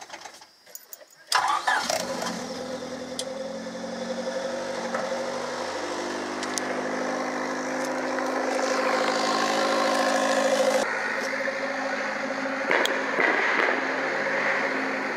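Rebuilt Honda D16Y8 four-cylinder engine cranking and catching about a second and a half in, then running at a steady idle that rises a little and settles.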